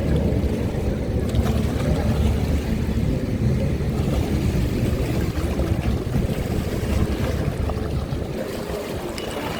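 Racing jet ski engines running out on the water, a steady low drone that eases off slightly near the end.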